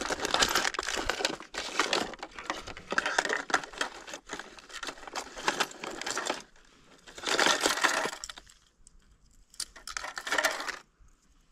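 Small metal fishing lures and tackle clicking and rattling as they are handled and sorted during a lure change. The rattling stops about six and a half seconds in, then comes back in two shorter bursts.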